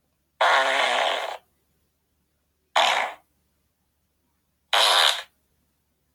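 Three fart sounds with silence between them: the first about a second long, the other two shorter.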